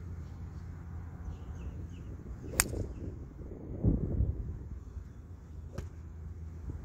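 Golf club striking a teed golf ball: one sharp, crisp click, followed about a second later by a low muffled rumble. A second, fainter click near the end, like another ball being struck.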